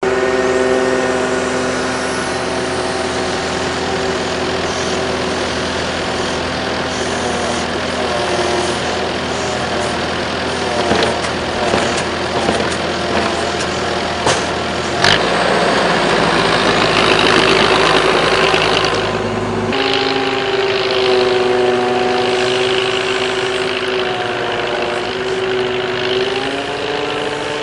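Engines of farm machinery, a truck-mounted hydraulic grapple crane and a tracked manure spreader, running steadily with the revs rising and falling as they work. One sharp knock comes about halfway through, and the engine note changes abruptly twice in the second half.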